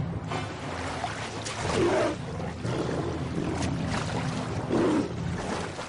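Lions splashing and thrashing as they swim through a river, with churning water and two louder surges, about two and five seconds in.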